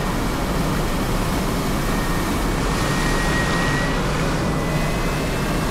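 Water rushing steadily through a running 3D-printed hydro turbine, with a faint high whine that rises slowly in pitch.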